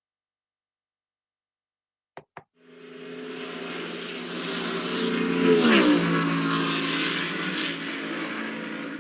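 A motor vehicle driving past. Its sound builds up, is loudest about three seconds later as the pitch drops while it passes, then fades away. Two short clicks come just before it.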